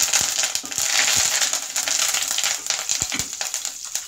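Fresh curry leaves hitting hot oil in an aluminium pressure cooker: a sudden loud sizzle full of crackles and spattering pops, which eases a little over the seconds as the leaves' moisture boils off.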